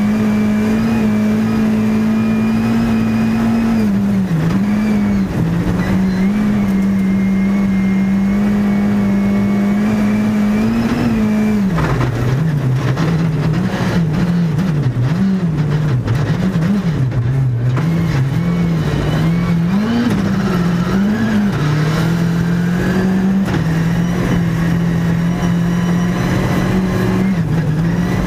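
Škoda Fabia R5 Evo rally car's turbocharged 1.6-litre four-cylinder engine heard from inside the cockpit under hard driving. The revs hold high and steady for the first ten seconds or so with a brief dip about four seconds in, then drop and climb again and again through the middle, and settle high and steady near the end.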